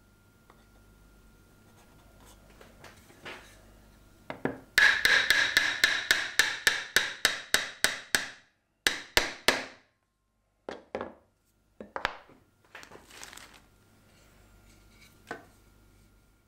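A rapid run of sharp knocks on wood, about five a second for some three seconds and loudest at the start, as a wooden upright is tapped down into a mortise in a base block; a few separate knocks follow.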